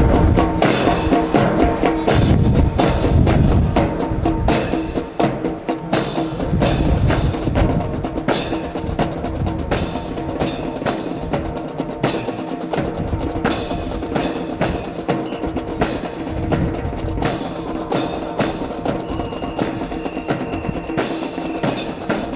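Rifle fancy drill: many rifles clacking and slapping as they are spun and handled in unison, with stamping boots, heaviest in the first few seconds, over a steady low hum.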